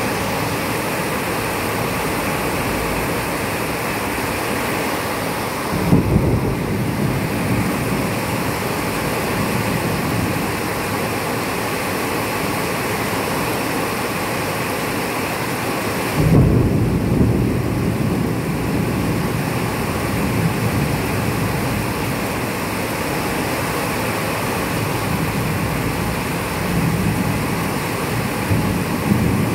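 Steady rain during a thunderstorm, with thunder twice: a sudden clap about six seconds in and another about sixteen seconds in, each rumbling away over a few seconds.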